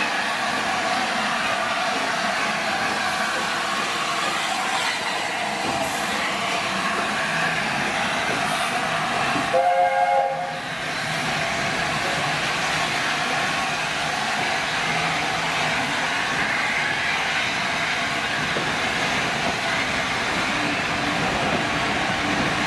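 LNER A4 steam locomotive 60009 Union of South Africa passing close with its train, a steady hiss of steam and the running noise of the locomotive and coaches. About ten seconds in comes one short blast of its chime whistle, the loudest sound.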